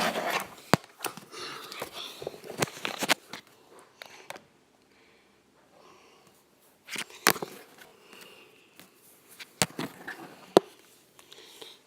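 Scattered sharp clicks and knocks with softer scuffing between them, and a quiet stretch in the middle.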